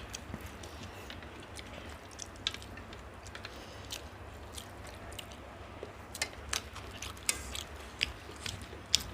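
Eating mutton biryani: scattered soft chewing and mouth clicks, more frequent in the second half, over a low steady hum.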